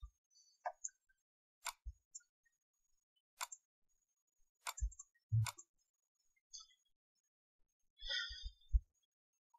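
Faint computer mouse clicks: four sharp single clicks a second or two apart, with a few soft low thuds and a small cluster of quieter clicks near the end.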